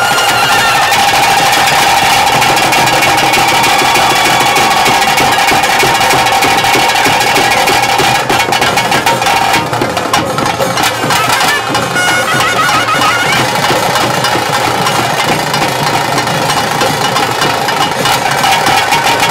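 Loud ritual band music: a wind instrument holds a steady high drone-like note over dense, rapid drumming, with a few short trilling phrases about two-thirds of the way through.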